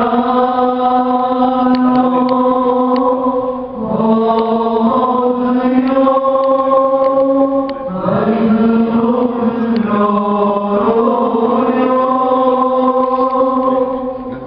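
Men's voices chanting a church hymn in unison, in long held notes. The phrases run about four seconds each, with short breaks about four and eight seconds in.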